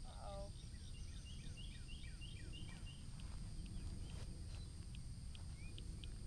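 Outdoor ambience: a steady low rumble, with a bird singing a quick run of descending notes and faint short ticks later on.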